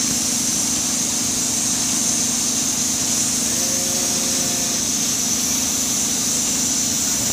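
Palm oil mill threshing-station machinery and conveyors running: a loud, steady industrial din with a constant low hum and a strong high hiss.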